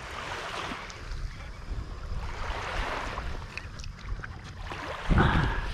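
Small waves washing and rushing at the shoreline, with wind noise on the microphone. A louder, deeper rush comes about five seconds in.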